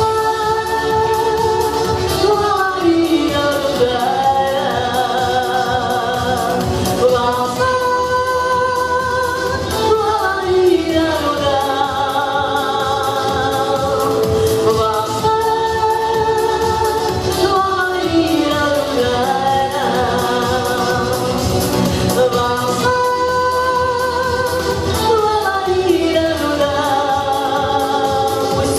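Singing with musical accompaniment: long held notes in a phrase that repeats about every seven seconds, each phrase ending with a falling slide in pitch.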